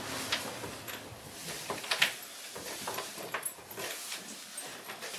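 Jersey cows eating hay at a feeder: scattered short rustles and crunches as they pull at and chew the dry hay.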